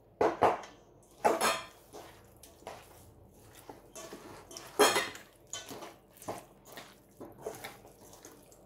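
Stainless steel pan clanking and scraping against a kitchen utensil and the enamel bowl as a blended marinade is scraped out onto cut meat: irregular sharp clanks and scrapes, the loudest about five seconds in.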